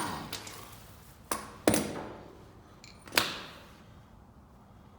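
The whir of an impact wrench dies away, then three sharp knocks, each with a short ringing tail, about a second and a half, just under two, and three seconds in.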